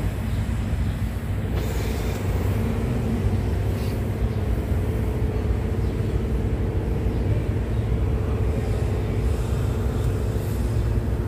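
Doosan D160S forklift's diesel engine running steadily, with a steady whine joining in about a second and a half in.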